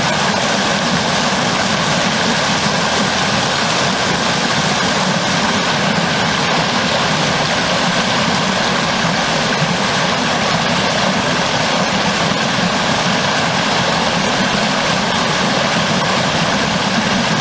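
Small forest stream pouring over a fallen log in a low cascade: a loud, steady rush of water with no break.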